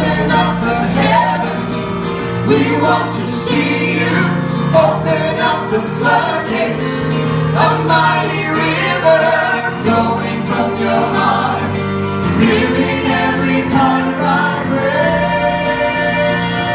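Worship song: singing voices over held keyboard and bass chords. Near the end the singing gives way to the instruments holding a steady chord.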